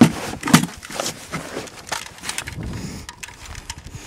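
Handling noise from an AK-pattern rifle being picked up on a plywood board: two sharp clacks about half a second apart, then softer knocks and the rustle of gear.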